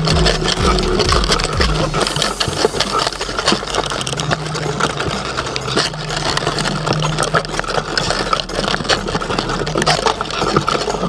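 Underwater sound inside a crab trap crowded with crabs: a dense crackle of clicks and scrapes from shells and legs knocking on the trap and on each other, over a low hum that comes and goes.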